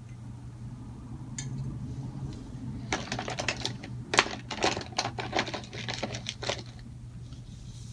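A sheet of drawing paper handled and shifted on a desk: a few seconds of dense crisp rustles and clicks, starting about three seconds in, over a steady low hum.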